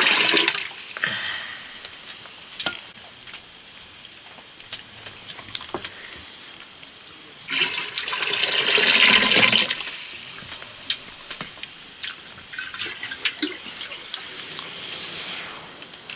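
Water being poured and splashed in three pours: a short one at the start, a longer one of about two seconds in the middle, and a weaker one near the end. Scattered light knocks and clinks sound in between.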